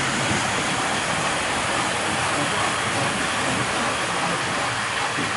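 00 gauge model trains running on the club test track: a steady rolling noise of metal wheels on the rails, with the whirr of the locomotive motors.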